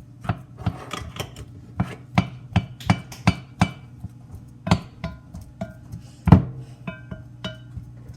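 Bananas being mashed in a bowl: a utensil knocks against the bowl again and again at an uneven pace, about two hits a second, some hits ringing briefly. The loudest knock comes a little after six seconds in.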